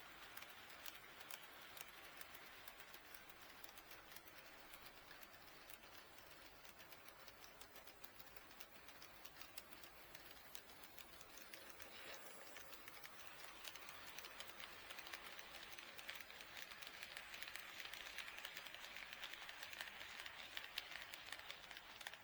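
Faint, rapid clicking of an HO scale model train's wheels running over the track joints, with a light whirr of wheels and motor that grows louder in the second half as the train passes closer.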